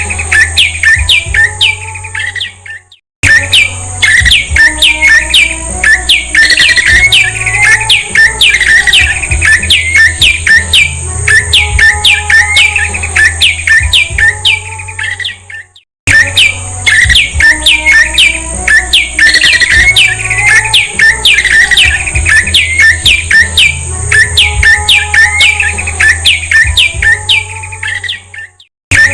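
Prenjak (prinia) song: a fast run of sharp, downward-slurred chirps, several a second, in a looped recording that breaks off briefly about three seconds in and again about halfway through. A steady low hum and a thin high whine lie under it.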